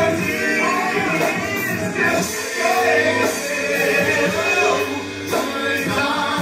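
Live gospel music: a band with guitar accompanying sung vocals.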